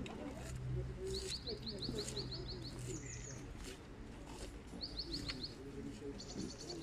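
A small bird singing in short runs of rapid high chirps, the longest lasting nearly two seconds, over a low murmur of distant voices.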